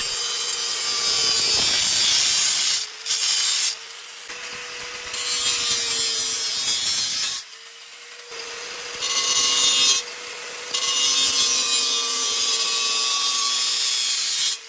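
Bosch GWS 060 angle grinder running with a thin cut-off disc, cutting through the metal wall of a rice cooker inner pot: a steady motor whine under the hiss of the disc biting the metal. The cutting hiss drops out three times as the disc is lifted off, leaving the whine alone, and the grinder stops suddenly at the end.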